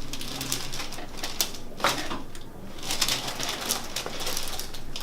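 Soft rustling and scraping of movement, in a series of short noisy strokes, the sharpest about two seconds in.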